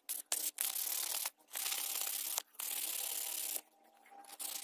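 Sandpaper rubbing on a hand-carved wooden spoon. A few quick short strokes are followed by three long strokes of about a second each, with short breaks between them, and fainter rubbing in the last second.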